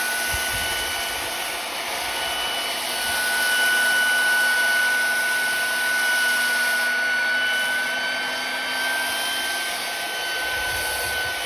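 BLSTRsander compressor-free sandblaster running: a steady motor whine over a continuous rush of air.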